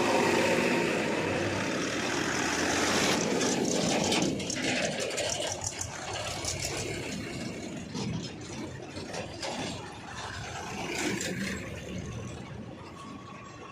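Heavy diesel machinery running, loud for the first few seconds and then somewhat quieter, with repeated clattering and rattling through the middle.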